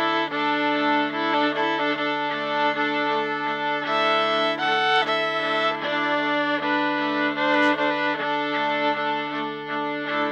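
Viola played through a looper: several bowed notes sustained and layered together over a steady low drone.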